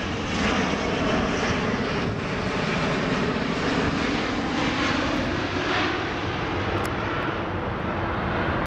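Boeing 777-200 airliner's twin GE90 turbofan engines running at approach power as the jet passes low overhead on final approach. Steady jet engine noise with a faint low hum, cutting off suddenly at the end.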